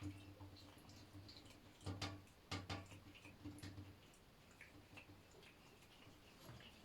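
Near silence in a shower: faint, scattered drips of water and small clicks over a low steady hum, the clearest pair of clicks about two seconds in.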